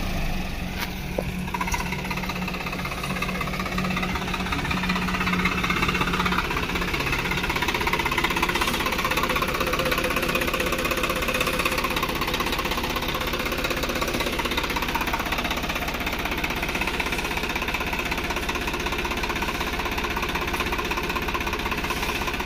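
Swaraj 744 FE tractor's three-cylinder diesel engine running stationary, with a steady knocking diesel clatter heard close to the engine.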